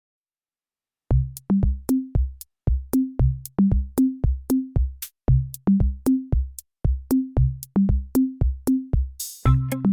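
Background electronic music: after a second of silence a drum-machine beat with pitched bass-drum hits starts, and near the end a cymbal swell brings in a fuller synth layer.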